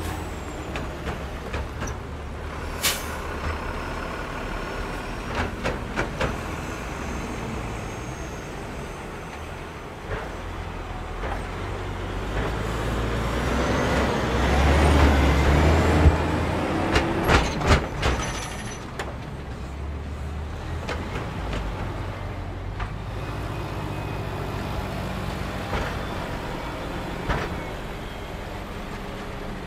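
Cars and diesel lorries driving over a railway level crossing, with engine rumble and tyre noise. The sound is loudest about halfway through as a DAF lorry passes close, and a quick run of knocks follows as wheels cross the rails.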